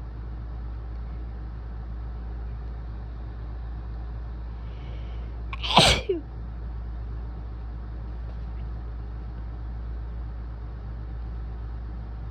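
A single wet human sneeze, loud and short, about halfway through, over a steady low hum.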